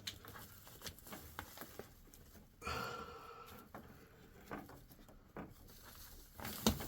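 Scattered light clicks, taps and rustling from hands working pipe fittings and tools, with a louder knock near the end.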